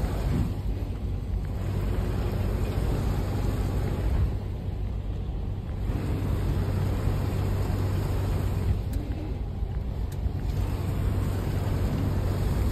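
Diesel engine of an articulated truck running at low revs, a steady low hum.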